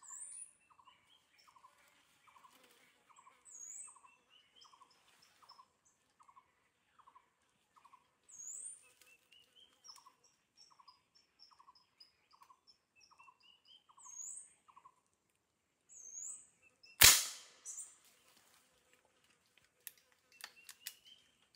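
Forest birds calling, one repeating a short note about two to three times a second while others give high rising chirps. About 17 seconds in, a single loud, sharp gunshot rings out, followed near the end by a few small clicks.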